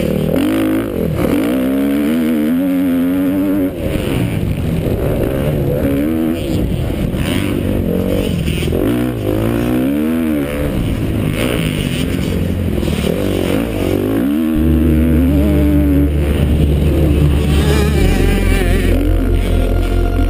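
Motocross dirt bike engine heard from the rider's helmet camera, its pitch rising and falling over and over as the rider accelerates, shifts and backs off through the corners.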